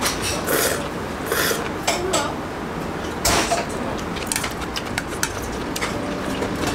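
Noodles being slurped, a few short slurps in the first few seconds, with metal chopsticks and a spoon clinking against a stainless steel noodle bowl.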